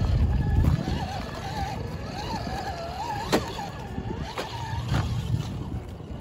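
Traxxas TRX-4 RC crawler's electric motor and gears whining, the pitch wavering up and down with the throttle as it crawls over rock, with a few sharp clicks and knocks of the tyres and chassis on stone. A low rumble is loudest in the first second.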